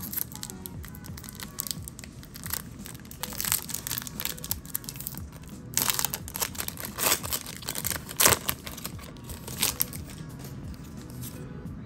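Foil booster pack wrapper crinkling and being torn open, in irregular crackles that are loudest a little past the middle, over faint background music.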